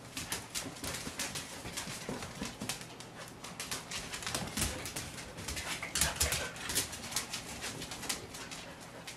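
Samoyed puppies and their mother scuffling on a hardwood floor: many quick claw clicks on the wood, with soft puppy vocalizations mixed in. The loudest flurry comes about six seconds in.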